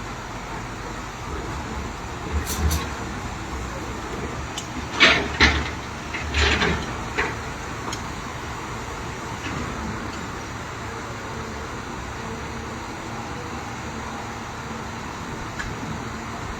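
Heavy construction machinery running steadily, with a pair of sharp knocks about two and a half seconds in and a louder cluster of knocks between about five and seven seconds.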